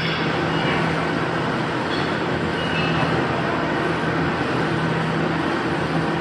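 Steady machine-shop background noise: a constant low hum under an even mechanical rush, with no change in level.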